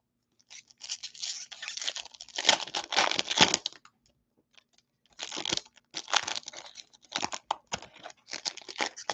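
Foil wrapper of a baseball card pack crinkling and tearing as it is ripped open by hand. It comes in two spells of short rips with a pause of about a second and a half between them.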